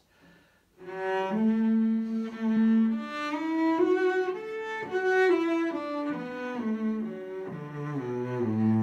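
Solo cello bowed in a slow melodic phrase of separate held notes, starting about a second in; the line steps down to low notes near the end.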